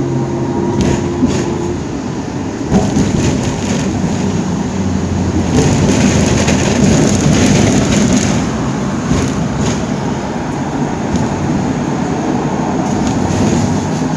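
Hong Kong double-decker tram running along its tracks: a steady low rumble of wheels on rails, growing louder with more hiss from about five to eight seconds in.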